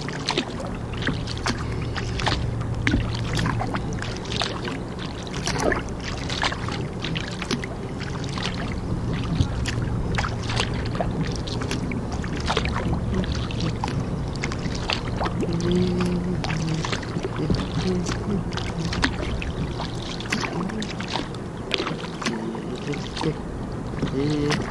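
Kayak paddle strokes, with water splashing and lapping against the hull in irregular splashes and clicks over a low, steady hum.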